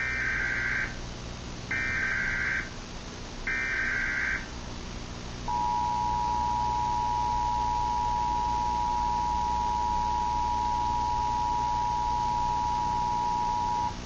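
Emergency Alert System tones for an Emergency Action Notification. Three bursts of SAME header data, each about a second long with short gaps, are followed about five and a half seconds in by the two-tone attention signal, a steady tone held for about eight seconds.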